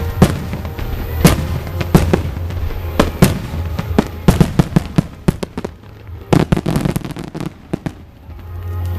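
Aerial fireworks shells bursting in sharp bangs about once a second, then two quick runs of many smaller bangs in the middle.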